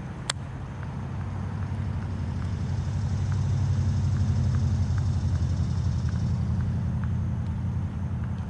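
A motor vehicle's engine passing by: a low hum that builds to its loudest about halfway through and then fades. A single sharp click comes just after the start.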